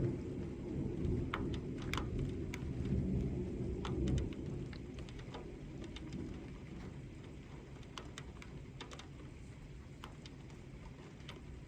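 A roll of thunder rumbling for about four seconds, then fading, over steady rain with scattered drips ticking.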